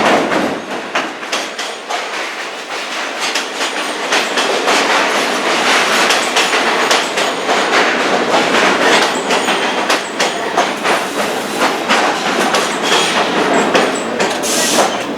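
New York City subway train moving through the station, its steel wheels clattering over the rail joints in rapid, irregular clicks, getting louder a few seconds in.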